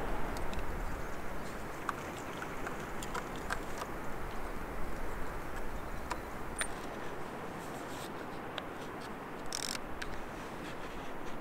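Steady outdoor coastal background noise, with scattered small clicks and taps from hands working a Fuji GX617 panoramic film camera on its tripod, and a sharp cluster of clicks near the end.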